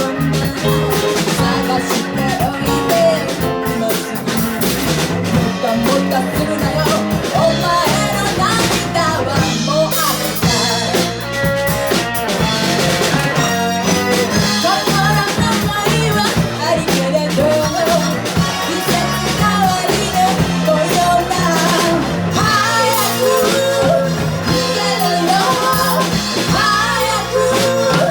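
A band playing a Shōwa-era Japanese pop song with drum kit, bass, guitar and keyboards, and a singer's voice over them.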